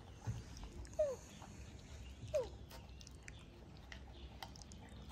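Quiet eating sounds at a table: faint light clicks of a spoon against a ceramic plate, and two short squeaks that fall in pitch, about a second in and again about two and a half seconds in.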